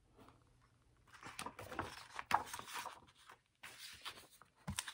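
Paper pages of a large hardcover picture book rustling and flapping as they are flipped through quickly, with a couple of sharp knocks as the book is handled.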